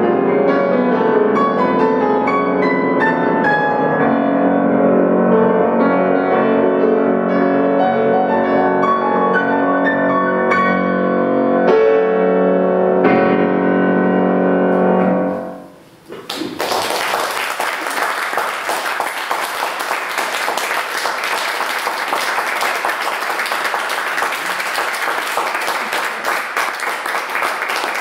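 Solo grand piano playing the closing bars of a classical-style fantasy, ending on a held chord that dies away about fifteen seconds in. The audience then applauds until the end.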